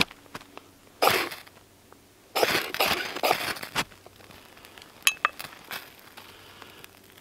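Knife spine scraped down a ferrocerium rod to throw sparks into birch bark tinder, which catches. One short scrape about a second in, then a longer run of hard scraping strokes, and a sharp click a little later.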